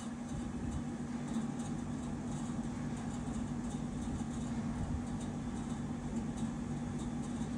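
Steady low mechanical hum with a held low tone, like a small motor or fan running.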